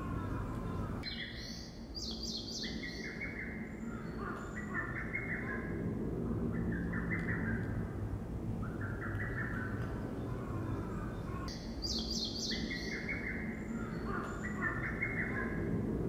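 A wild songbird singing, repeating short warbled phrases, with a burst of high chirps about a second in and again near twelve seconds. A stream's steady low murmur runs underneath.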